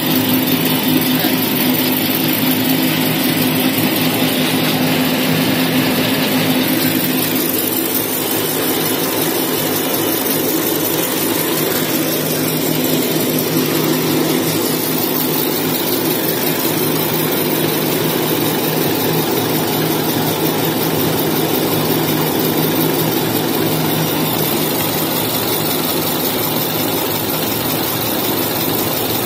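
Steady drone of a running semi-automatic maxi-roll slitting and rewinding machine in a tissue-paper factory: a continuous motor hum with several steady low tones and no sharp knocks.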